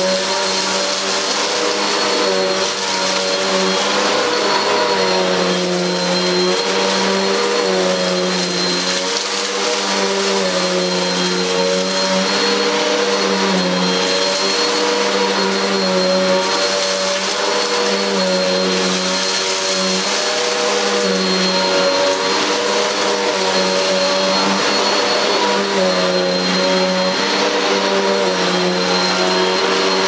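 Goblin bagless upright vacuum cleaner running on carpet, pushed forward and back over dirt. It is a steady motor hum with a thin high whine, its tone rising and falling slightly every few seconds.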